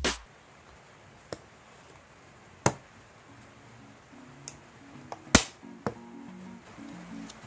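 A handful of sharp, separate clicks, the loudest about two-thirds of the way through, from hands working the snap fastener and metal rings of a plastic 6-ring A5 binder. Soft background music comes in about halfway.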